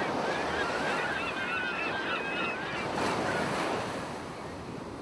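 Surf washing on the beach, a steady rush, with a flock of birds calling over it in many short chirps, mostly in the first half.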